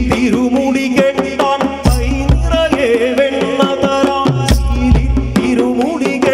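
A man sings a Malayalam devotional song to Krishna with a wavering, ornamented melody into a microphone, backed by hand drums and percussion. Deep bass drum beats fall near the start and about two and four and a half seconds in.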